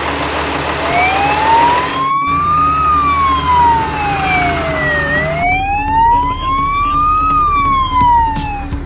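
Fire truck siren wailing, starting about a second in and gliding slowly up and down through two full rises and falls, over a steady low hum.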